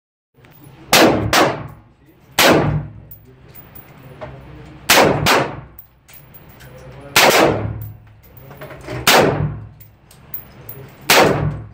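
AR-15 rifle fired shot by shot, about eight shots at uneven gaps, twice with two shots in quick succession. Each crack rings out in the indoor range.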